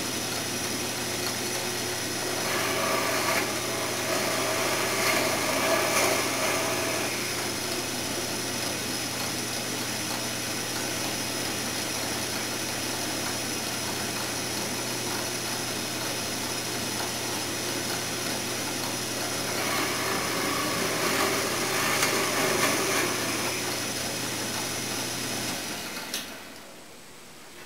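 Drill press motor running steadily while the bit bores two dowel holes into a wooden drawer front, one about two to seven seconds in and the second near the end. The motor is then switched off and winds down.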